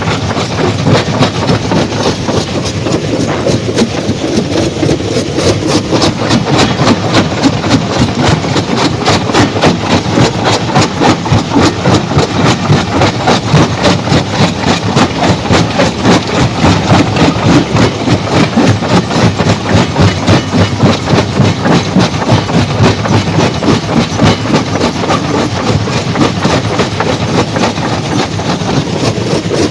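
Heavy stone-crushing machinery running, with a steady rapid clatter of about three knocks a second.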